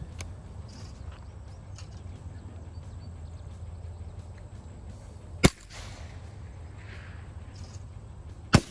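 Ruger .22 rifle firing: one sharp shot about five and a half seconds in, then two shots in quick succession at the very end.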